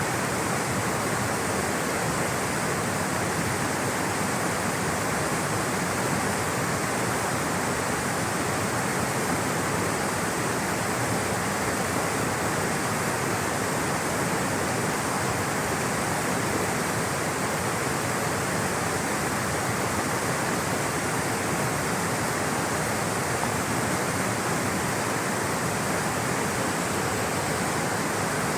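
Rushing water of a stream or small waterfall, a steady, unbroken roar.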